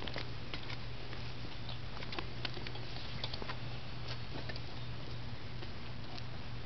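Light, scattered clicks and pattering from a child's bicycle with training wheels being walked along a concrete driveway, over a steady low hum.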